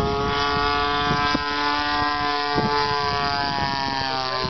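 DLE-20 single-cylinder two-stroke gas engine of a Seagull Zero 60 model plane running steadily in flight, a continuous buzzing drone whose pitch drifts only slightly.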